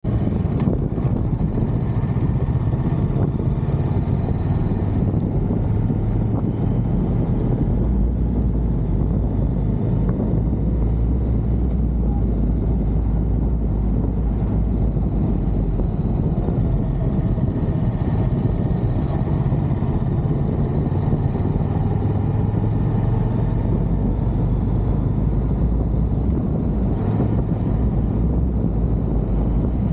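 Honda Rebel 500's parallel-twin engine running steadily at cruising speed as the motorcycle rides along, with a continuous rushing noise above it.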